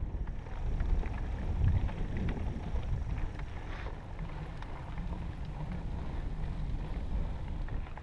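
Wind buffeting an action camera's microphone while a mountain bike rolls over a dirt trail, a steady low rumble rising and falling, with faint rattles from the bike over bumps.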